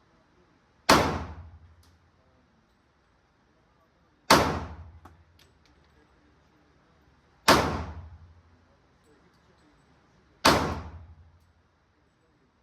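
Four single pistol shots from a .40-calibre Glock, fired slowly about three seconds apart, each ringing out and dying away over about a second in the echo of an indoor range.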